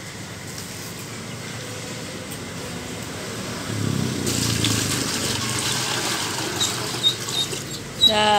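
Water being poured from a basin into a plastic bucket, splashing around a duckling. The pouring starts about four seconds in and goes on for several seconds.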